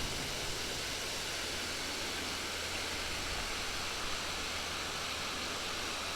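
Steady, even hiss with a faint low hum and no other events: recording noise from a microphone whose cable has come unplugged.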